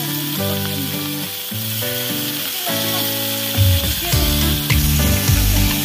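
Sliced vegetables sizzling as they fry in oil in a metal wok, under background music of held notes; a heavier bass line comes in a little over halfway through.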